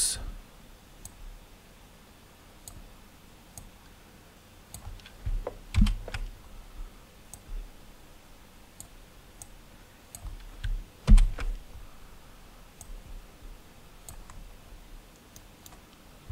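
Scattered clicks of a computer mouse and keyboard keys, with two louder clusters of knocks about six and eleven seconds in.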